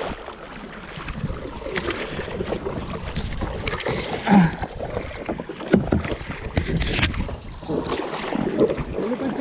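Kayak paddle strokes and water splashing irregularly against a sit-on-top tandem kayak's hull as it moves through open sea, with some wind on the microphone.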